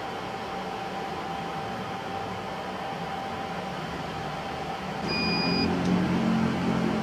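BGA rework station running while it heats a laptop chipset to replace it: a steady hiss of hot air with a constant whine. About five seconds in, a single short beep sounds and a louder low hum starts.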